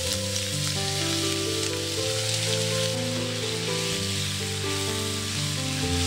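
Chopped onions sizzling as they fry in hot oil in a frying pan, a steady crackle, with background music of long held notes underneath.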